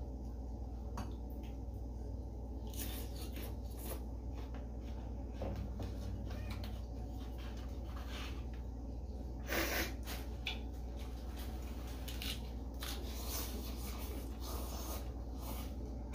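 Eating sounds from two people: chewing grilled beef and vegetables, with small chopstick and mouth clicks scattered through, over a steady low hum. A louder short noise comes about nine and a half seconds in.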